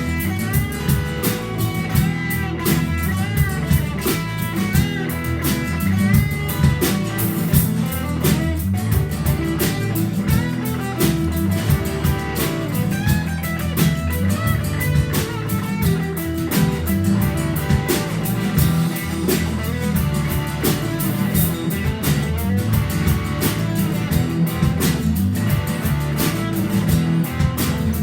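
Live band playing an instrumental passage of a rock song: guitars with bending lead notes over bass and a drum kit keeping a steady beat.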